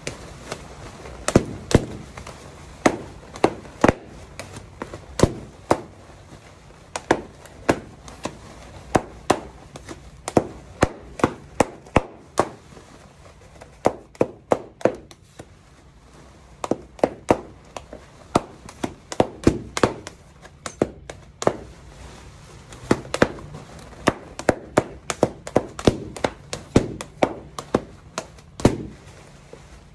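Latex balloons being popped by hand one after another: dozens of sharp pops at irregular intervals, about two a second, with a short lull near the middle.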